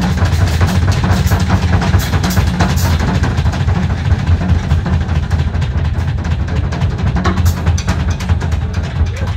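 Live noise-rock band playing: a drum kit played hard with continual cymbal and drum hits over a dense, unbroken wash of electric guitar.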